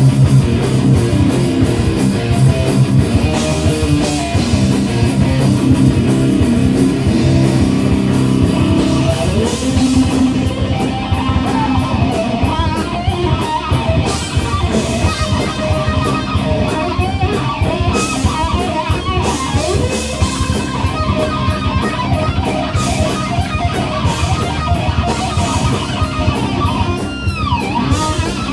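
A rock band playing live without vocals: electric guitar over bass and drums, with guitar notes bending in pitch. Near the end a guitar note slides steeply down.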